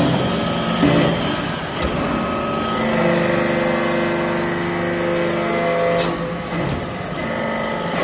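Hydraulic copper chip briquetting press running under load as its ram presses down into the mould. A few sharp clicks come in the first two seconds. From about three seconds in the sound settles into a steady drone of several held tones, broken by a sharp click about six seconds in.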